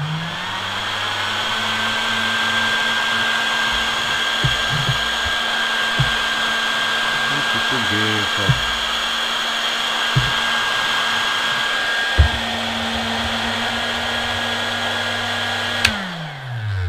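Heat gun switched on for a test run after its broken heating spiral was repaired by shorting two turns across the break: the fan motor spins up and runs steadily with a rushing airflow hiss and a high whine, and it works. Near the end a click switches it off and the motor winds down in pitch; a few light knocks of handling come in between.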